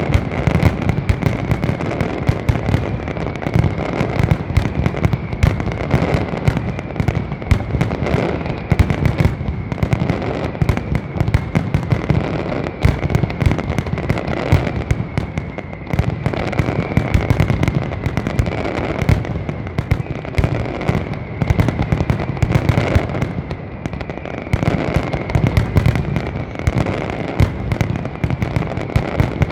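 Large aerial fireworks display at full barrage: a dense, continuous run of rapid bangs and crackling reports with no pause.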